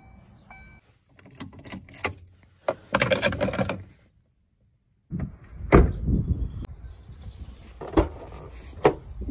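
A car's dashboard warning chime stops within the first second. It is followed by clicks and a jangle of the metal key fob as the key is handled at the ignition. Then a car door shuts with a heavy thud, and near the end two sharp clicks come as the Kia Picanto's tailgate latch is released at the badge.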